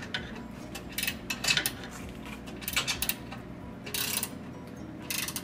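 Half-inch socket wrench tightening screws into T-nuts on a cable tray: several short bursts of metallic clicking and clinking.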